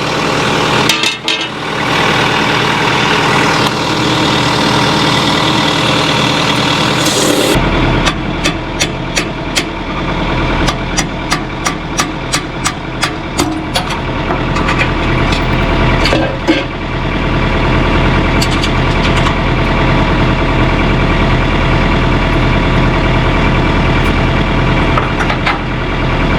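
Tractor engine idling steadily, with a run of sharp knocks, about two a second, for several seconds about a third of the way in and one more loud knock a little later: striking at a stuck backhoe mounting pin to drive it out.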